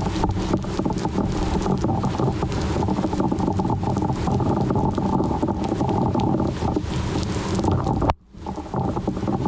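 Storm wind rushing over the microphone: a loud, continuous rumbling hiss with crackles from the microphone being buffeted. About eight seconds in, the sound cuts out for a moment and then comes back.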